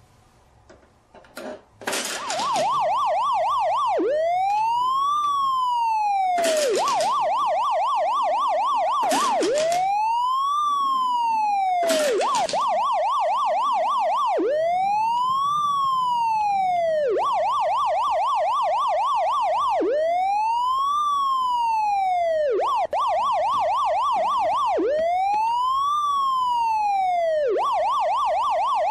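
Electronic police siren, alternating a slow rising-and-falling wail with a fast warbling yelp, over and over. A few sharp plastic clacks come in the first dozen seconds.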